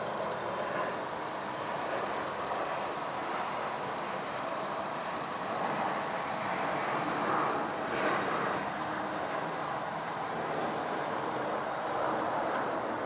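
Boeing 737-800 airliner with CFM56-7B engines passing low overhead on approach, gear down. A steady broad jet rushing noise that swells a little about six to eight seconds in.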